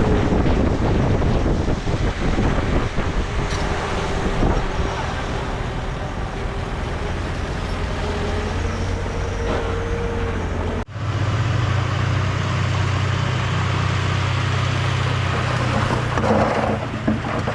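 Heavy diesel earthmoving machinery running: bulldozer and dump truck engines. About eleven seconds in, the sound breaks off abruptly and gives way to a steadier, deeper engine drone.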